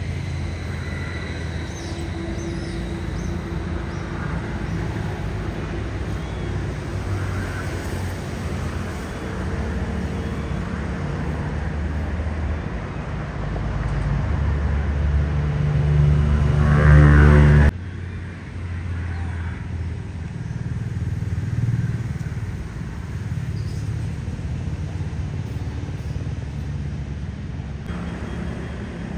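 Low, steady rumble of a motor vehicle running. It grows louder about two-thirds of the way through, then cuts off suddenly to a quieter rumble.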